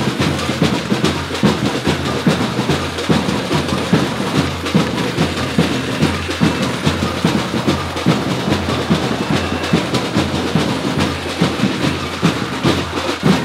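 Skateboard wheels rolling fast over rough asphalt: a steady rumble with a dense clatter of small knocks from the road surface, cutting off sharply near the end.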